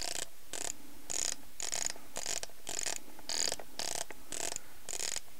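The film advance knob of a Lomography Diana F+ is turned in short repeated strokes, about two a second, winding the 120 roll film on toward the first frame.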